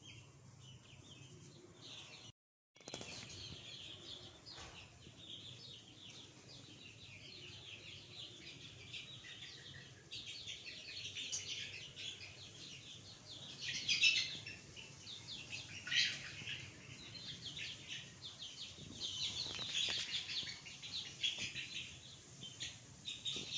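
A flock of young chicks peeping steadily, many short high chirps overlapping, with a couple of louder bursts past the middle.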